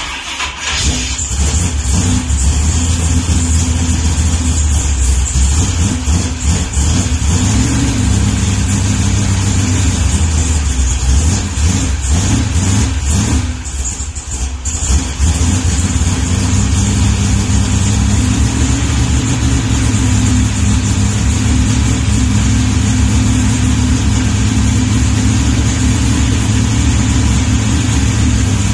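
A freshly rebuilt 540 cubic-inch big-block Chevy V8 in a 1969 Nova fires on its first start and runs at a fast idle. The rpm wavers at first and sags briefly about halfway through, then it settles into a steady run.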